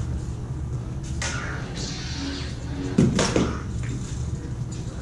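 Combat LED lightsabers clashing in a sparring duel: blade swings and strikes over the sabers' sound-font hum. The loudest, sharpest clash comes about three seconds in.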